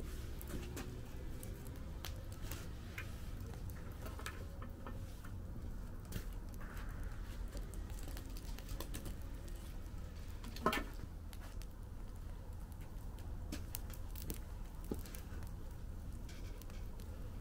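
Wood fire in an outdoor fire pit crackling, with scattered small pops and one louder pop about ten and a half seconds in, over a low steady rumble.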